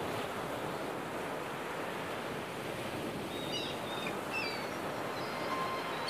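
Sea surf breaking and washing up a sandy, gravelly beach: a steady rushing wash of foam. A few faint high chirps come in over the second half.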